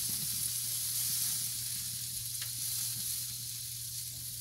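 Marinated pieces of rack of lamb sizzling on a hot grill grate, a steady hiss, with one light click of metal tongs about two and a half seconds in.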